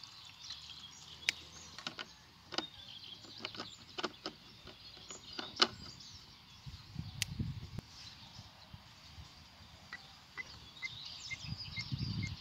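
Scattered sharp plastic clicks and taps from handling a petrol brush cutter's fuel tank cap and engine housing, with a soft rumbling handling noise about seven seconds in and again near the end.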